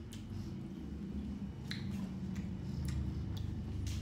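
Close-up chewing with wet mouth clicks and smacks, a handful of sharp separate ones, over a low steady hum.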